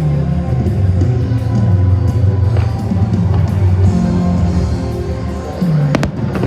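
Rock-style music with guitar and sustained low notes, the soundtrack played with the fireworks show, with one sharp crack about six seconds in.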